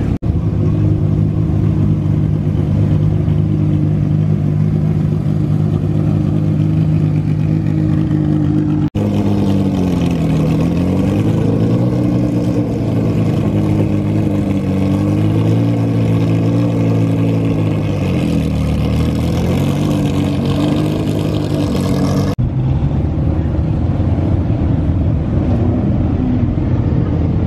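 Sports car engines at low revs, in three edited stretches. First a steady idle, then an engine whose pitch drops and climbs again as the car moves off, then a rougher, lower running note.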